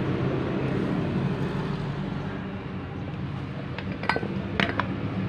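About four sharp metallic clinks in the last second and a half, from metal starter-motor parts being handled during reassembly, over a steady low machine hum.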